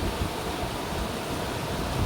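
River water rushing steadily, a constant even hiss of flowing water with a low rumble underneath.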